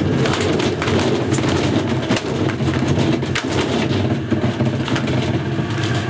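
Fisher & Paykel washing machine drum spinning on its 42-pole Smart Drive motor, with a VCR and a sealed lead-acid battery knocking and clattering around inside it. There is a steady low hum under frequent irregular bangs.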